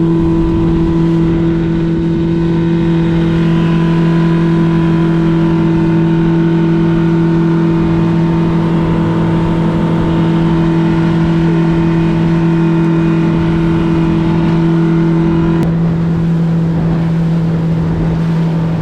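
Boat outboard motor running at a steady cruising speed, with water and wind noise under it. The drone holds an even pitch throughout, and its higher tone drops away near the end.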